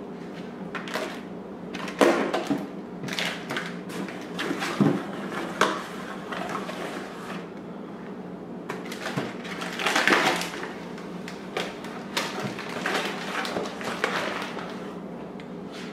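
A small cardboard box being handled and opened, its flaps and packing material rustling and crinkling, with sharp knocks and scrapes as it is moved and lifted out of a glass aquarium. A steady low hum runs underneath.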